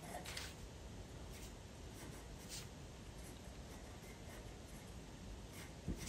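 Pencil tracing over a printed photo onto Pastelmat paper: faint, short scratchy strokes several times. There is a soft bump near the end.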